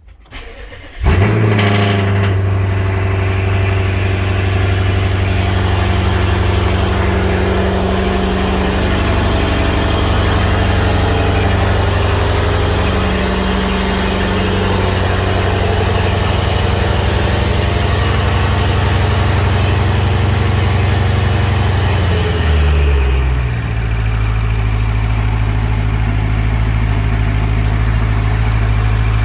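BMW 650i's N63TU twin-turbo V8 cranking and catching about a second in, on its first start after fitting high-output ignition coils, then running at a steady raised idle. About 22 seconds in the idle drops and settles at a lower, steady speed.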